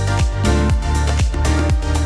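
Background electronic dance music with a steady beat and heavy bass.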